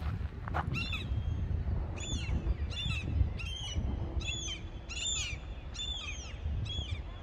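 A bird calling repeatedly: seven short, high calls, each a quick falling note, about one a second, over a steady low rumble.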